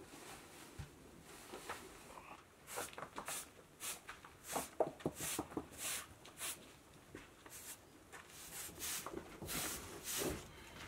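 Straw hand broom sweeping loose wool scraps and dirt across a hard floor: a run of short, brisk swishing strokes, irregular, about one or two a second, starting a few seconds in.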